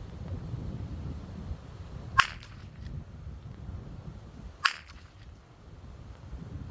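Two shots from a Henry .22LR rifle, about two and a half seconds apart, each a short sharp crack. Wind buffets the microphone throughout as a low rumble.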